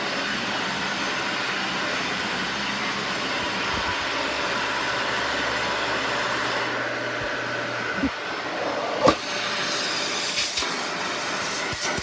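Dyson Ball Animal 2 upright vacuum cleaner running steadily. About two-thirds through, its low hum drops away. A few sharp clicks and knocks follow as the machine is handled, the loudest about nine seconds in.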